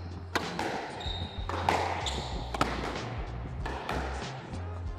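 Squash rally: a squash ball cracking off racquets and the court walls, sharp impacts about once a second at uneven intervals, with brief high squeaks from court shoes in between.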